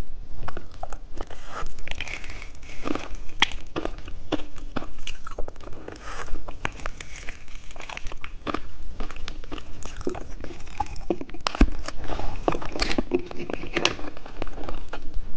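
Close-miked eating sounds: a lollipop coated in popping candy being licked and crunched in the mouth, with many small irregular crackles and clicks.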